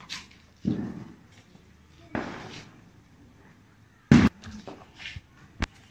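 Firecrackers going off on the street: a few separate bangs, the loudest a sharp crack about four seconds in, with another short crack near the end.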